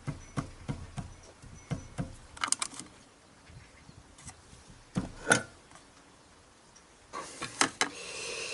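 Light clicks and knocks of a dial angle gauge and a metal square being handled and set against a drill press table, with the sharpest knock about five seconds in. Near the end comes a stretch of metal scraping and clicking as a socket ratchet wrench is taken up.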